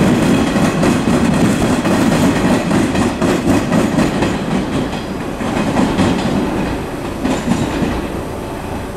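Electric commuter train running along the platform, its wheels clicking over rail joints, the rumble dying down toward the end.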